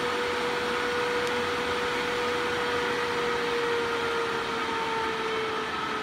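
AC Infinity Cloudline S8 8-inch inline duct fan running: a steady rush of air with a hum. The hum drops slightly in pitch near the end.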